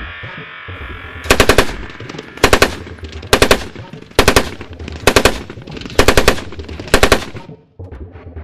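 7.62 mm PKT coaxial machine gun firing seven short bursts of a few rounds each, a little under a second apart, starting about a second in.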